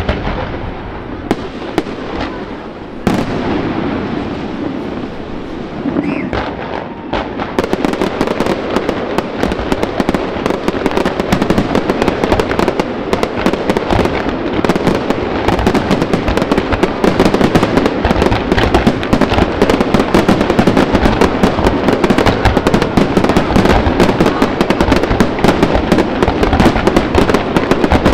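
Fireworks display: a few scattered shell bursts at first, then from about seven seconds in a dense, unbroken barrage of bangs and crackle that keeps building in loudness.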